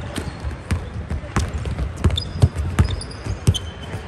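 Basketballs bouncing on a hardwood gym floor, a run of irregular thuds, with players' footfalls and a few short high sneaker squeaks in the second half.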